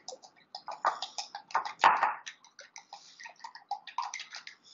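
Two eggs being beaten with a fork in a small glass bowl: rapid, irregular clicking of the fork against the glass, with one louder knock about two seconds in.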